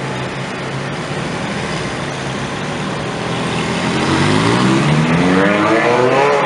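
Ferrari engines idling steadily, then one Ferrari pulls away and its engine revs up through the second half, the pitch rising steadily and growing louder until near the end.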